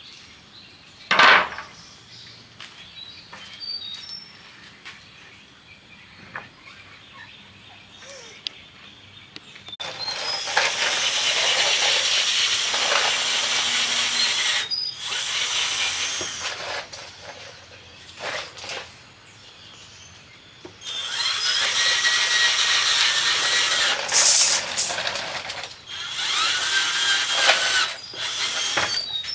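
A handheld power tool, probably a drill, working into wood in several bursts of a few seconds each, with a sharp knock about a second in.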